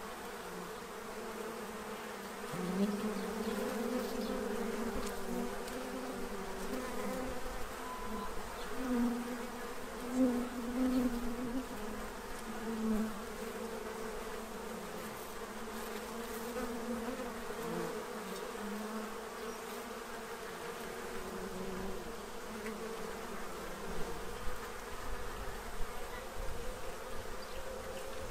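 Many honey bees buzzing as they fly around a feeder tray: a steady hum of wingbeats that swells louder several times as single bees fly close past.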